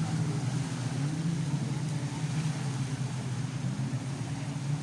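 Jet ski engines running with a steady drone, over the rushing noise of water.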